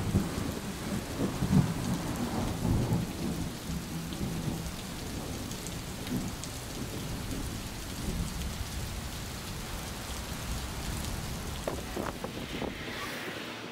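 A rumble of thunder dies away over the first few seconds, over the steady hiss of falling rain, which carries on alone.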